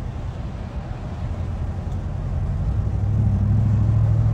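Engine and road noise of a moving vehicle heard inside its cabin, a steady low rumble. From about three seconds in it grows louder, with a steady low hum rising out of it.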